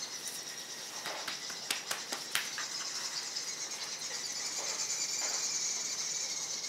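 A few sharp clicks and taps in the first couple of seconds, from small dogs moving about on a tile floor, over a steady high-pitched background hiss.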